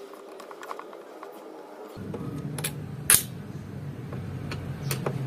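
Screwdriver working small screws out of a stand mixer's metal gear plate: scattered small metal clicks and scrapes, with one sharp, louder click about three seconds in.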